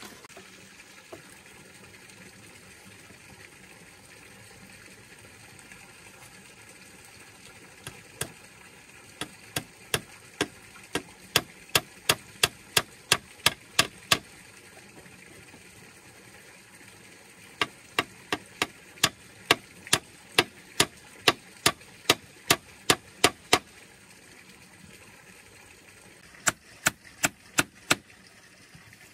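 Sharp blows of a hand tool, about two or three a second, in three runs with pauses between, over the faint steady rush of running water.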